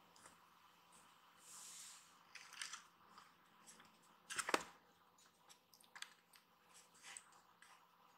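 Quiet room with scattered faint clicks and rustles, a soft hiss about one and a half seconds in, and one sharper tap about four and a half seconds in.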